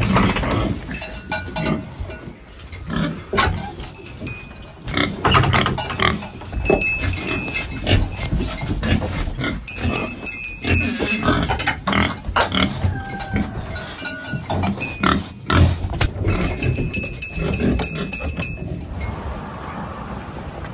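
Farm animals in a wooden barn calling as they are fed hay, with hay rustling and knocks against the wooden pens.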